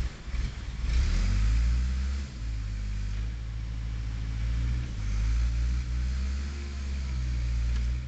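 Case 580E backhoe engine running hard, revving up and down as it works the hydraulic boom and bucket while digging. A few knocks come in the first second.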